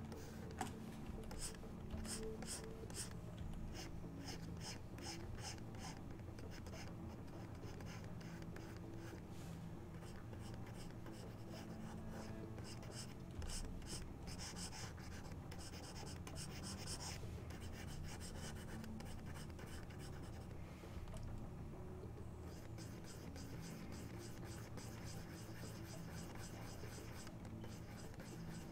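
Digital pen stylus scratching across a drawing tablet in runs of short sketching strokes, with a brief lull about two-thirds of the way through. A steady low hum sits underneath.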